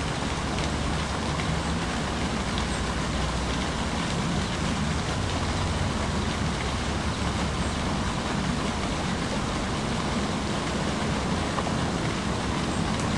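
Steady outdoor background noise: an even hiss with a low rumble beneath it, unchanging and without distinct events.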